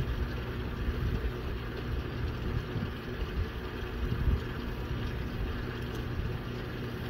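Wind rumbling and buffeting on the microphone, over a steady low hum.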